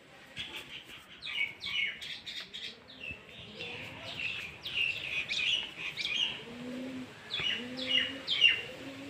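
Small birds chirping: a busy run of short, quickly falling chirps that starts about half a second in and keeps going in clusters throughout.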